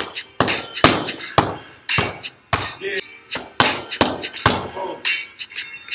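Boxing gloves striking focus mitts in a pad drill: a rapid, irregular string of sharp smacks, several landing in quick succession.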